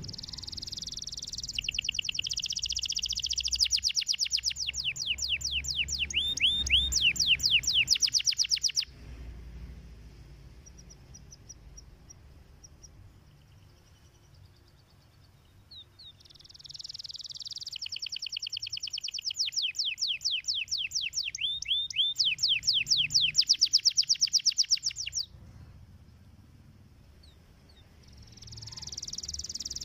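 Domestic canary singing in long phrases: each starts with a buzzy trill and runs into rapid strings of repeated high sweeping notes. Two full phrases with quieter pauses between, and a third begins near the end.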